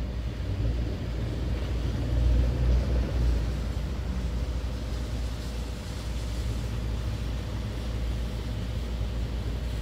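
Steady low outdoor rumble of parking-lot traffic, swelling briefly about two to three seconds in.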